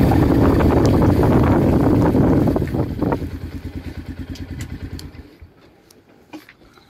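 Motorcycle engine running under a loud rush of wind on the microphone. It slows to an even putter that fades and stops about five seconds in.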